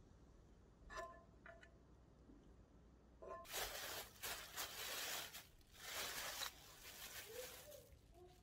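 A thin plastic bag crinkling and rustling in bursts for about three seconds as it is pulled off something on a cutting board, after a couple of light metallic clinks of a spoon against a frying pan about a second in.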